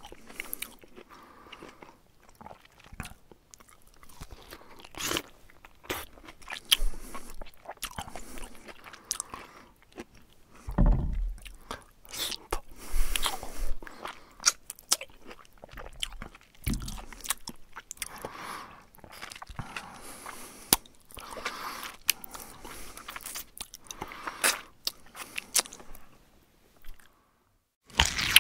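Bear chewing and crunching food in irregular bites, with a couple of louder dull thumps around the middle.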